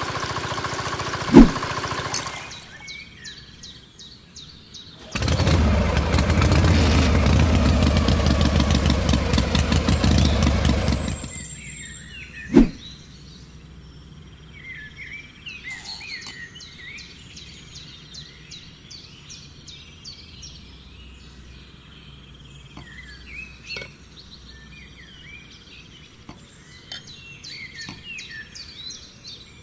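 Small motor of a toy water pump running with water gushing, with a sharp click a little over a second in, then dying away. A loud, dense running noise follows for about six seconds in the middle and cuts off suddenly, then a single sharp knock. After that, birds chirping over a quiet rural background.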